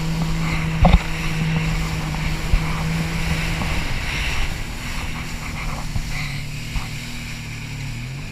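Jet ski engine running at speed, with water spray hissing and wind buffeting the microphone. The engine pitch holds steady for the first few seconds, shifts around the middle and drops near the end as the throttle eases, and a sharp thump comes about a second in.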